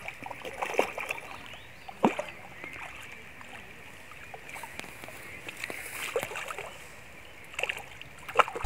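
A hooked carp thrashing at the surface of shallow water as it is played in on a line: a handful of sharp splashes and sloshes, loudest about two seconds in and again near the end.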